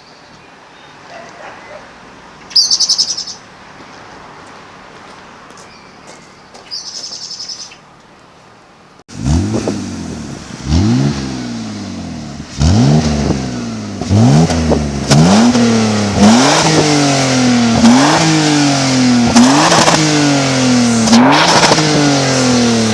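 Birds chirp twice over a faint background. About nine seconds in, the BMW E39 520i's M54B22 straight-six is revved repeatedly: about eight throttle blips, each rising quickly in pitch and falling back, the later ones held a little longer.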